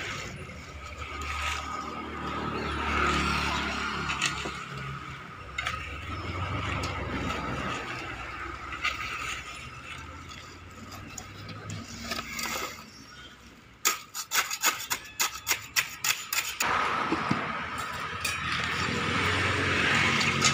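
Road traffic passing with a low rumble, mixed with a hand trowel scraping and smoothing wet concrete. About two-thirds of the way in comes a quick run of sharp knocks, about three a second, for a few seconds.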